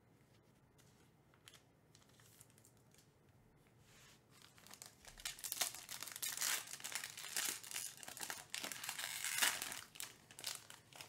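Foil trading-card pack being torn open and crinkled by hand. It starts about four seconds in, after a quiet stretch with a few faint taps.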